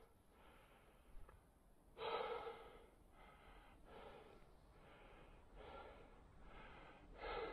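A man breathing hard through the mouth, close to a helmet-mounted microphone: one heavy breath about two seconds in, then quieter breaths roughly once a second.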